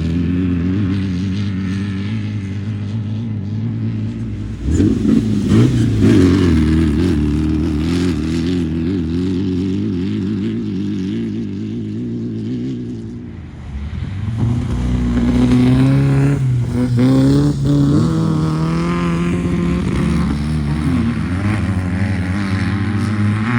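Off-road race car engines running and revving, rising sharply about five seconds in and again around fifteen seconds in as the pitch climbs and wavers.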